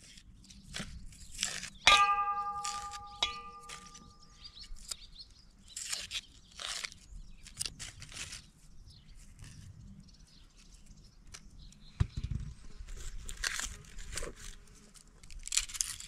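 Onion being peeled with a knife: dry, papery onion skins tearing and crackling in short bursts. About two seconds in a sharp knock sets off a metallic ring that fades over a couple of seconds, and a dull thump comes near the twelve-second mark.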